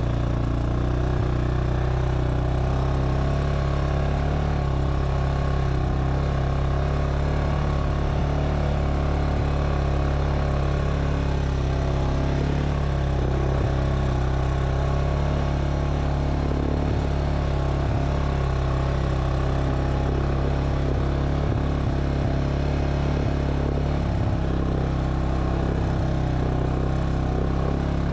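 ATV engine running at a steady, even speed as the quad is ridden along a dirt trail, with a few light knocks now and then.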